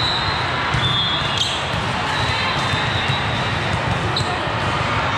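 Balls bouncing in a steady clatter of low thuds, with a few short high-pitched squeaks.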